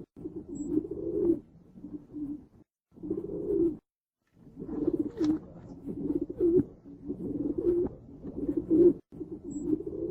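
Pigeon cooing in repeated low phrases, with two short pauses about three and four seconds in.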